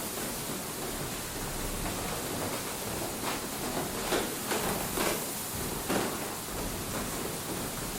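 A steady hiss with several short knocks scattered through its middle.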